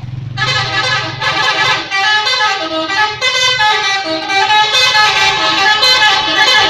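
Telolet horn on an Agam Tungga Jaya bus, a set of multi-tone air horns, playing a quick tune of changing notes from about half a second in, growing louder near the end. A low engine rumble sits under it at the start.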